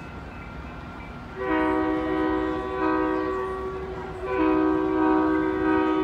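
Approaching commuter train's locomotive air horn sounding a chord of several notes together. It starts about a second and a half in, then a second long blast begins a little after four seconds.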